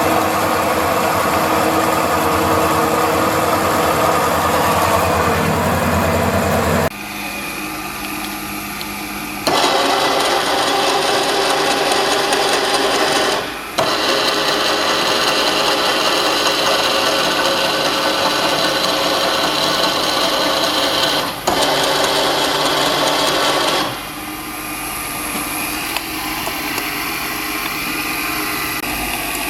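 Bohner & Köhle MF 1 universal milling machine running, a steady mechanical hum and whir that changes abruptly in pitch and level several times.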